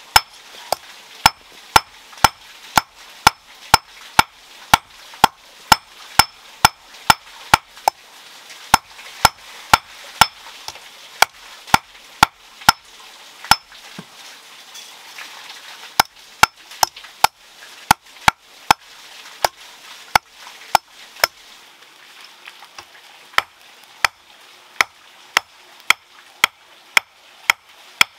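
Hammer blows on a red-hot iron bar laid on a stone anvil, hand forging: a steady run of sharp, ringing metal strikes about two to three a second, with a pause of about two seconds partway through.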